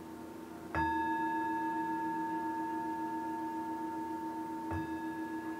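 A bell-like chime struck twice, about four seconds apart, each stroke ringing on as a clear pure tone, over a low steady drone of ambient background music.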